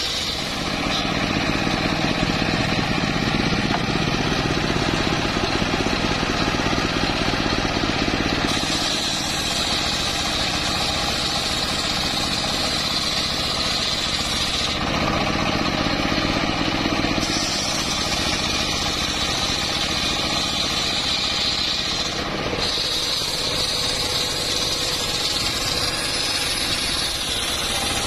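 Homemade engine-driven circular saw bench running steadily while its large blade rips an old mahogany log into slabs, with a steady engine note under the hiss of the cutting. The sound shifts abruptly a few times.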